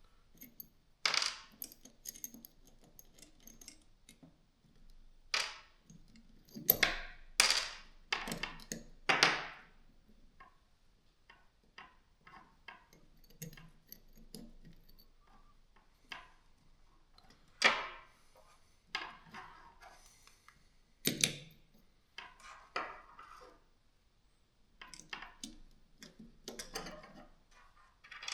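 Tools and small drill parts being handled on a workbench: irregular separate clicks, taps and clinks, a dozen or so louder ones among fainter handling noise.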